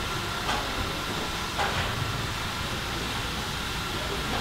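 LMS Black Five steam locomotive standing still and simmering, with a steady hiss of steam. A few short clicks or knocks come about half a second in, again after a second and a half, and near the end.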